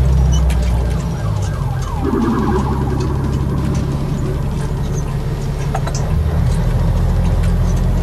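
A police siren wails in rising and falling glides for a couple of seconds, starting about a second in, over the steady low running of a semi truck's Caterpillar 3406 diesel heard from inside the cab.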